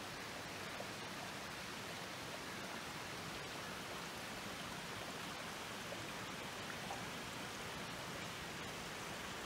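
A small forest stream running, a steady even rush of water.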